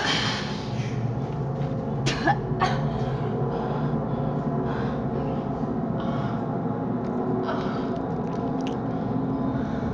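A steady low drone under a woman's pained gasping and whimpering as she reaches into her bleeding mouth, with a few sharp clicks around two to three seconds in.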